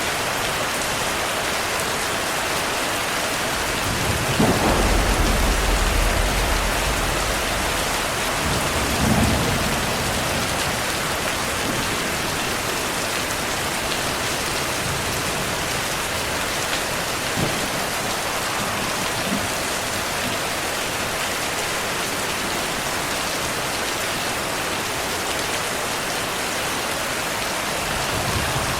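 Steady rain with thunder: a low rumble swells about four seconds in and lasts a few seconds, followed by a second, shorter rumble about nine seconds in.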